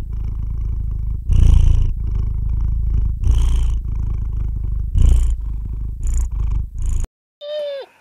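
A kitten purring steadily, swelling louder about every two seconds. The purr cuts off about a second before the end, and a dog gives a short, high whine that falls in pitch.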